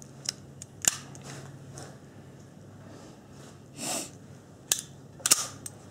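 A few sharp metallic clicks and clacks from a pistol and its magazine being handled, the loudest about a second in and near the end, with a short breathy rush of noise about four seconds in.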